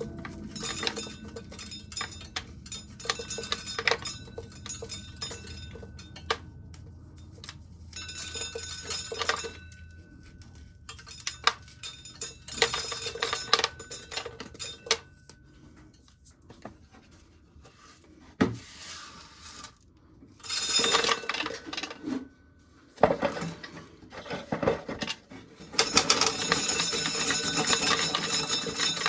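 Dry corn kernels being shelled off the cob, clattering and clinking into a container in irregular bursts, densest and loudest near the end.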